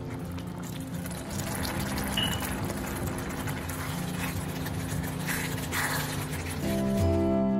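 Wet, sloppy sound of a spatula stirring chunks of beef through thick gravy in a frying pan, over soft background music with steady low notes. Acoustic guitar music grows louder near the end.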